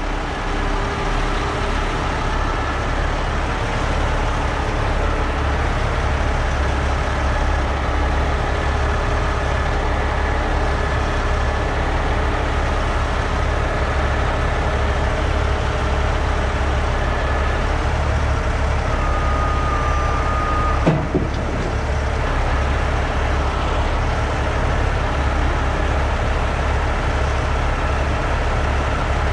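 Heavy rotator tow truck's diesel engine running steadily while its boom holds a load. A single short thump about 21 seconds in.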